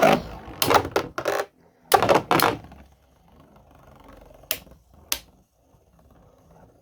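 3D-printed Beyblade spinning tops clashing in a plastic stadium: a cluster of sharp clacking hits in the first couple of seconds, then a faint scraping whir of the tops spinning, with two more sharp clacks about two-thirds of the way through.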